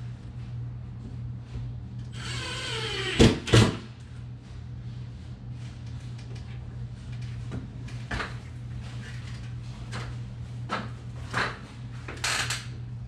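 A power drill runs for about a second with its whine dropping in pitch, as when driving a screw for a blind mounting bracket, followed by two sharp knocks. Scattered small taps and clicks of hardware handling follow, over a steady low hum.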